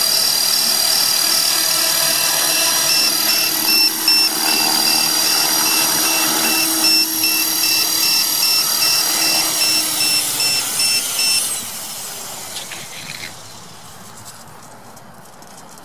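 HK450 V2 electric RC helicopter with a Turnigy SK3 2839 3600KV brushless motor hovering, with a steady high-pitched motor whine over the whir of the rotor blades. About three-quarters of the way through the whine cuts off suddenly and the rotor sound dies away, followed by a few faint clicks.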